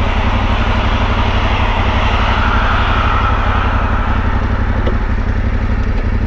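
Yamaha Ténéré 700's parallel-twin engine running steadily at idle. A broader rushing noise swells and fades about halfway through.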